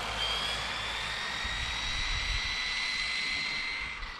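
WLtoys 104001 RC buggy's brushless electric motor whining at high speed as the car races away down the road. The high whine holds steady, then fades out near the end.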